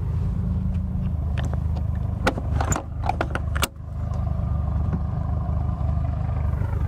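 The latch and handle of a Beechcraft Baron 58P's heavy pressurized rear cabin door clicking and clunking as it is worked open: a handful of sharp clicks and knocks between about two and four seconds in. A steady low mechanical hum runs throughout.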